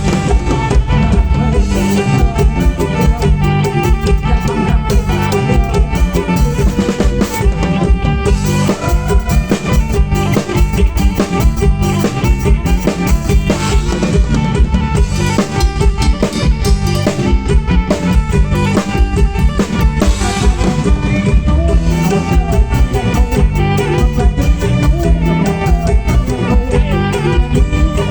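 Kantrum band music: a drum kit keeps a steady beat under a bowed fiddle melody.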